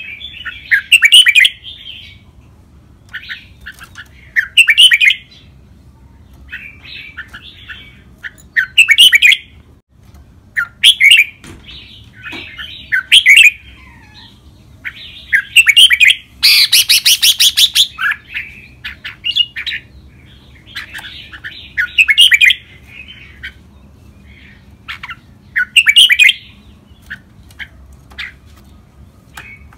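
Caged red-whiskered bulbul singing short, loud, warbling phrases every second or two, with a longer, harsher burst about halfway through.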